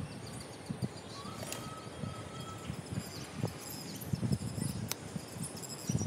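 Outdoor bird ambience: scattered high, short bird chirps over an uneven low rumble, with one brief steady whistle-like tone about a second in.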